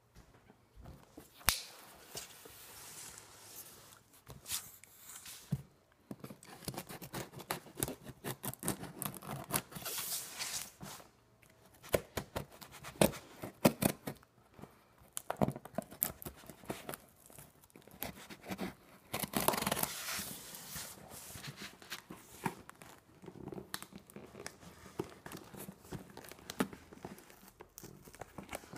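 Packing tape being peeled and torn off a cardboard box, with scraping, taps and crinkling as the box is handled. There are several longer rips, the loudest about ten and twenty seconds in.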